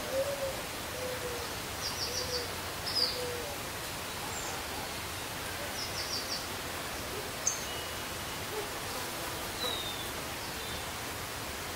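Birds calling over a steady background hiss: a run of short low notes over the first three seconds, and scattered quick high chirps and trills through the rest.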